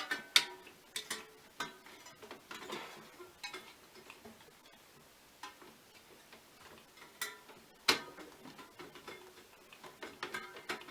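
Scattered small clicks and taps of hands handling cables and plastic parts on a PC motherboard, with a sharper click just after the start and another about 8 seconds in.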